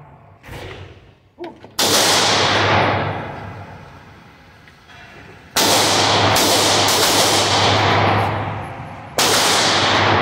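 Gunshots ringing through an enclosed indoor range, each followed by a long echoing decay: a loud shot about two seconds in, a quick string of about three shots around the middle, and another loud shot near the end, with a couple of fainter reports early on.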